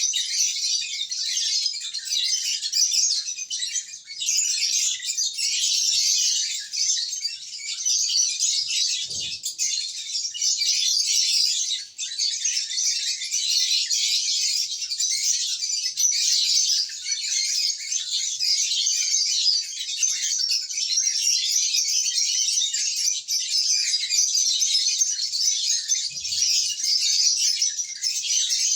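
A flock of lovebirds chattering and chirping together in a continuous high-pitched twitter.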